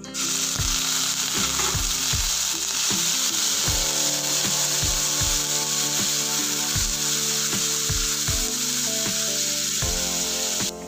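Chopped onion and cumin seeds sizzling in hot oil in a kadai as they are stirred with a wooden spatula.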